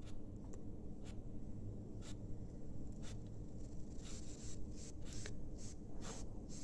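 A metal slotted spoon stirring chicken meatballs in an aluminium pot of boiling water, scraping against the pot in short strokes that come several times a second in the second half. A steady low rumble of the boiling pot runs underneath.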